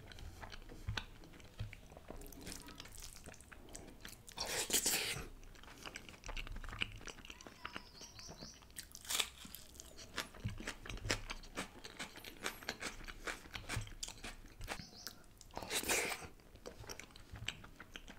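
Close-miked chewing of chicken malai tikka with rice, eaten by hand: wet mouth sounds with many small smacking clicks, and two louder noisy moments, about five seconds in and again near the end.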